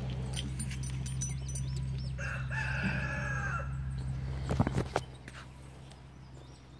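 A rooster crowing once, a call about a second and a half long, over a low steady hum. The hum stops about five seconds in, just after a few sharp knocks.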